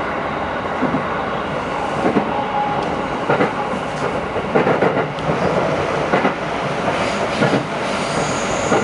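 JR 211 series electric train running along the track: a steady rumble of wheels on rail with irregular clacks over the rail joints. A high wheel squeal starts near the end.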